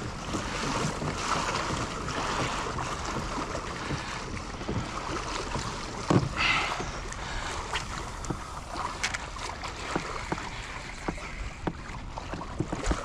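Water swishing and lapping along the hull of a moving kayak on open sea, mixed with wind on the microphone. Small splashes and clicks throughout, and one sharper knock about six seconds in.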